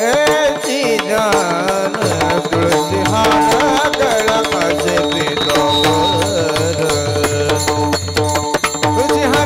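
Indian devotional music: a melodic line that bends and ornaments over a steady drone. A hand drum joins about two seconds in and keeps a steady rhythm.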